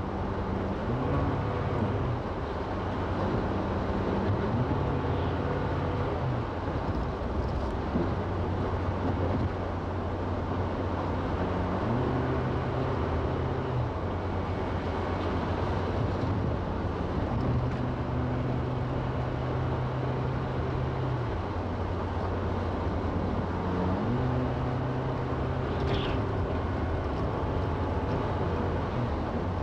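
Car engine and tyre noise on a snow-packed road, heard from inside the cabin while driving. The engine note rises and falls back several times over a steady road rumble.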